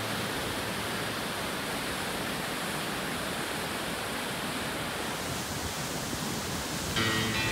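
Steady rushing noise of a waterfall, with no pitch to it. Acoustic guitar music comes in near the end.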